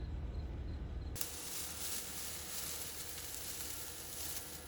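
A low rumble for about the first second, then an abrupt change to a steady, even high-pitched hiss with no distinct events.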